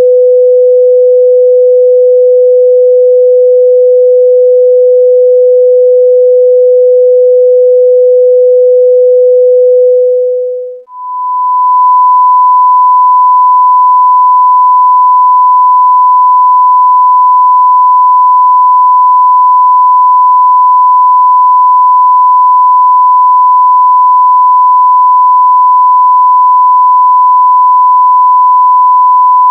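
A steady 500 Hz sine-wave test tone that fades out about ten seconds in, followed by a steady 1 kHz sine-wave test tone.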